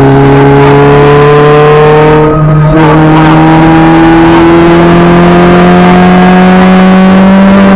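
Acura B18B1 four-cylinder engine under hard acceleration, loud and angry-sounding because the exhaust has rusted off after the catalytic converter. Its pitch climbs, drops at a gear change about two and a half seconds in, then climbs again more slowly.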